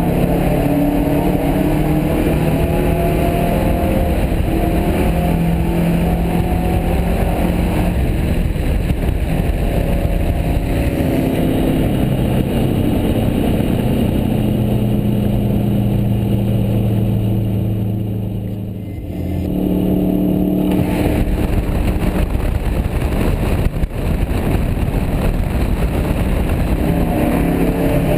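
Turbocharged flat-four engine of a Subaru Forester XT, heard from inside the cabin while driving at speed, running steadily over road rumble. About two-thirds of the way through, the engine note falls and the sound dips for a moment, then comes back at a higher pitch.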